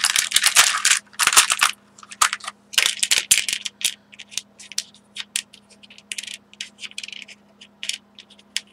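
Small loose craft embellishments rattling and clicking as a hand rummages through them, densest in the first couple of seconds, then scattered clicks.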